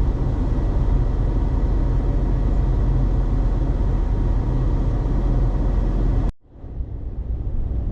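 Steady road and engine rumble heard from inside a moving car at highway speed. About six seconds in it cuts off abruptly, then builds back up over the next second or so.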